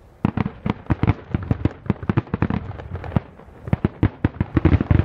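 Distant fireworks display: a rapid, irregular series of sharp bangs from bursting shells, starting a moment in, with a short lull a little past the middle before the bangs pick up again.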